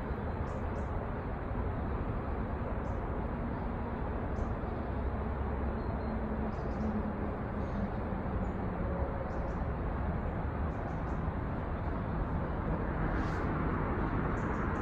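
Steady outdoor background noise: a constant rumbling hiss with a faint low hum, dotted with brief faint high chirps, growing a little brighter near the end.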